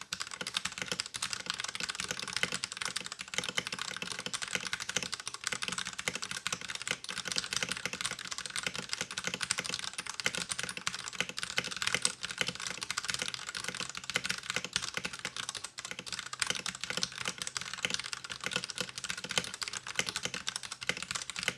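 Fast, continuous typing on an LTC Nimbleback 65% mechanical keyboard with a plastic case and metal plate, stock 60g Akko Purple linear switches and thin ABS doubleshot keycaps. The keystrokes run as a dense, unbroken stream of many clicks a second.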